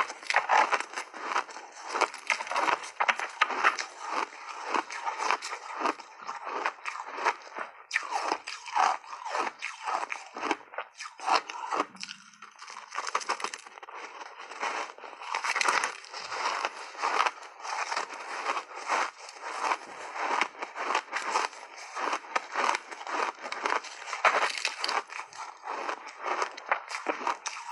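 Ice chunks coated in matcha powder being chewed close to the microphone: dense, rapid crunching and crackling with a brief lull about halfway through.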